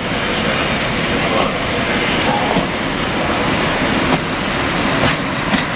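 MÁV M47 diesel-hydraulic shunting locomotive hauling Bzmot trailer cars past at low speed: a steady rumble of the running diesel with wheels clicking sharply over rail joints several times.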